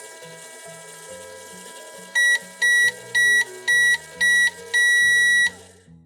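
A microwave oven running with a steady hum, then beeping six times, five short beeps and a longer final one, to signal the end of the cycle.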